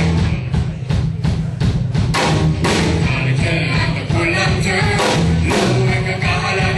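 Live performance by a singing group: music with a steady drum beat and bass under the singing voices.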